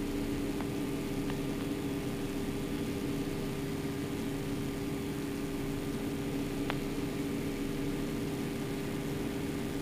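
Yak-52's nine-cylinder Vedeneyev M-14P radial engine droning steadily in cruise, heard from inside the cockpit as an even rush with a steady low hum. A few faint ticks come through over the drone.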